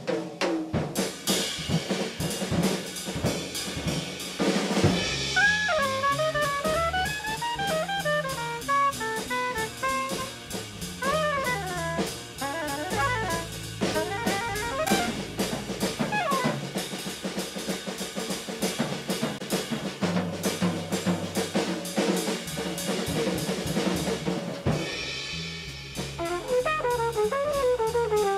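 Jazz combo playing, led by busy drum kit and percussion hits, with a saxophone line weaving up and down about five to twelve seconds in and again near the end.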